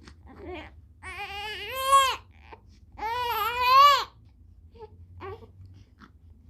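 A two-and-a-half-month-old baby crying: two loud wails of about a second each, one about a second in and one about three seconds in, with short whimpers between and after.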